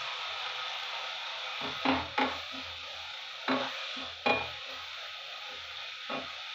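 Shredded vegetables sizzling steadily in a kadhai while a wooden spatula stirs them, knocking against the pan five times.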